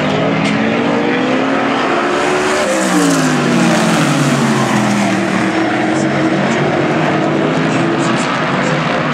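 Several winged sprint cars' V8 engines running at speed around a dirt oval. One car passes close about three seconds in, its engine note rising and then falling in pitch as it goes by, the loudest moment.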